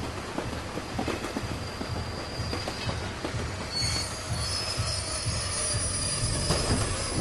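Commuter train heard from inside a crowded carriage: a steady rumble with rattles and knocks. About halfway through, the wheels start a high-pitched squeal that lasts to the end.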